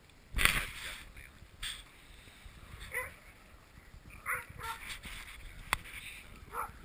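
Dogs giving a few short, high yelps while they play, spread over several seconds. A brief burst of noise hits the microphone about half a second in, and there is a sharp click near the end.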